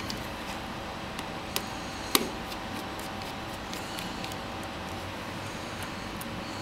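A few faint, sharp clicks and taps of a small screwdriver working a screw out of a phone's case, over a steady room hum; the sharpest click comes about two seconds in.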